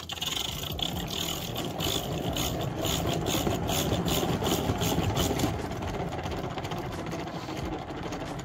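Chef Master hand-crank salad spinner being turned briskly, its crank mechanism whirring with a fast run of ticks as the basket spins wet kale and throws the water out. It is loudest in the first few seconds and eases slightly toward the end.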